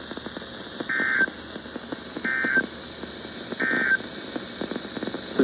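Three short, buzzy digital data bursts over weather radio, about a second and a half apart: the EAS/SAME end-of-message (NNNN) code closing a NOAA Weather Radio severe thunderstorm watch broadcast. Radio hiss with faint crackle lies between them.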